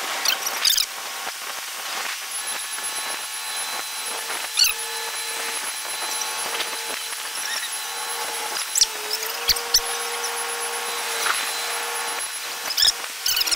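Construction machinery running with a steady drone that dips slightly in pitch about nine seconds in, with a few short sharp knocks spread through it.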